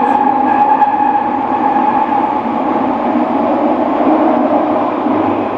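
Kobe City Subway 6000 series train running, heard from inside the car: steady wheel and track noise with a whine from the traction motors and Hitachi hybrid-SiC inverter, easing a little near the end.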